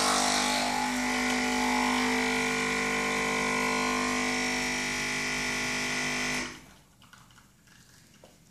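A household electric appliance running: a steady motor hum made of many fixed tones. It switches off about six and a half seconds in.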